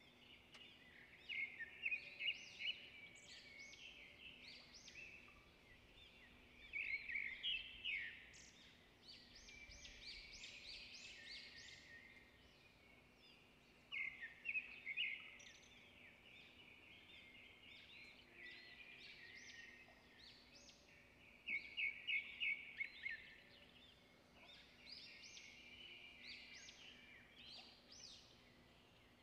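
Small birds chirping and twittering in bouts of quick, high notes, with a faint steady low hum underneath.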